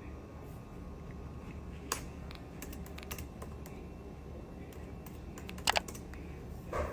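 Scattered light clicks and taps over a low steady hum, with two sharper clicks about five and a half seconds in.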